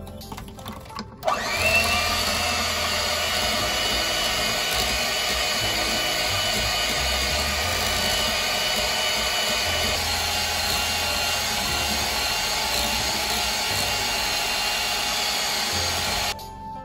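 Electric hand mixer running, its beaters whipping a milk-and-gelatin cream in a metal bowl. The steady motor whine starts about a second in with a brief rise in pitch and cuts off near the end.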